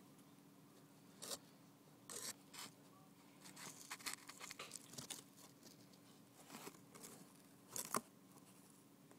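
Faint handling noise: short scrapes and rustles scattered throughout, the loudest near the end, over a steady low hum, as a handheld phone camera is moved among cardboard model pieces.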